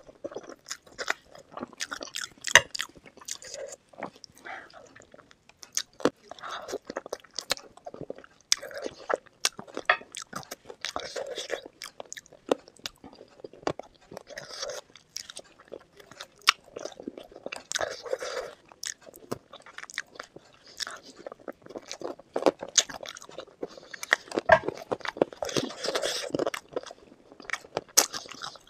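Close-miked eating of spicy chicken feet curry and Maggi noodles: a person biting and chewing, with many sharp, irregular crunches and clicks.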